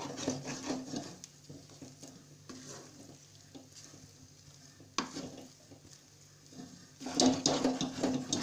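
A spatula stirring and scraping thick moong dal paste around a metal kadai as the paste is roasted dry over the flame, with a light sizzle. A single sharp knock comes about five seconds in, and the scraping turns loud and brisk near the end.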